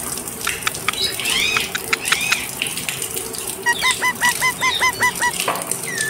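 Indian ringneck parakeet calling: a few rising-and-falling whistled chirps, then a quick run of about nine short, identical squawks, about six a second, with scattered sharp clicks around them.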